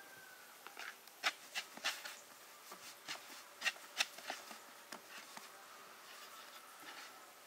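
Bread dough being handled and pressed on a wooden cutting board: a scattered series of light taps and knocks, thinning out after about five seconds.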